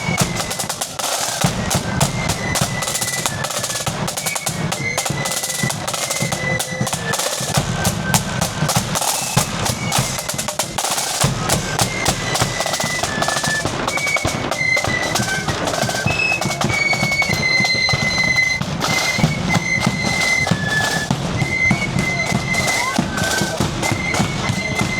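Marching flute band playing a tune: a high flute melody over snare drums with rolls and a steady bass drum.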